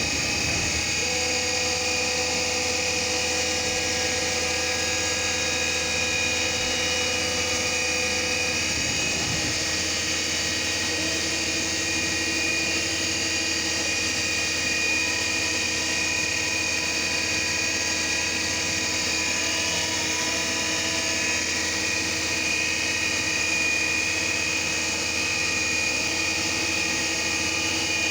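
CNC milling machine running, milling the groove of a reversing shaft turned on the fourth (rotary) axis: a steady machine noise with several high whining tones, some of which shift or drop out every few seconds.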